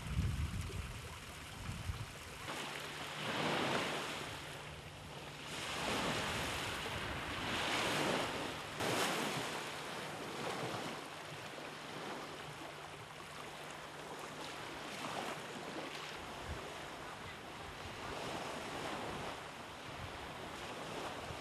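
Small waves washing onto a shore in surges every couple of seconds, with wind rumbling on the microphone at the start and a faint steady low hum under most of it.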